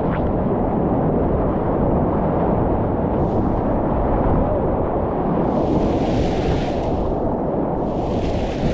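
Whitewater rushing around a kayak, a steady low rumble on the helmet camera's microphone, with two swells of higher splashing hiss, about five and a half and eight seconds in.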